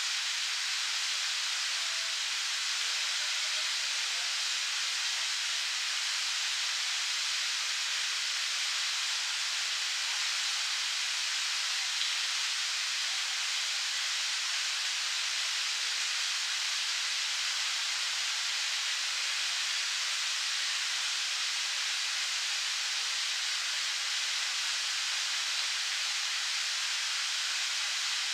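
Fountain jet splashing steadily into its pond: an even, unbroken rush of falling water.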